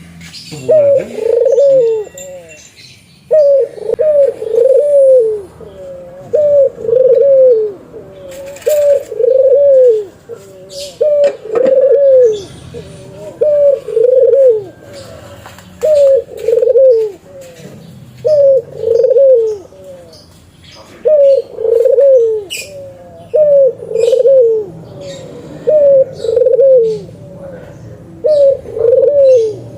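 Turtledove cooing over and over: short arched coo phrases, roughly one every second and a half, with a few faint sharp chirps among them.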